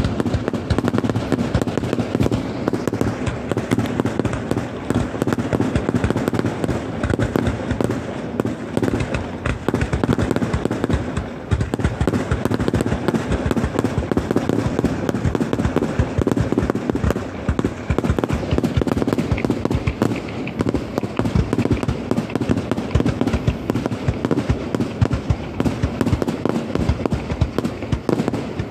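Aerial fireworks finale: shells bursting and crackling in a dense, unbroken barrage, bang after bang with no pause.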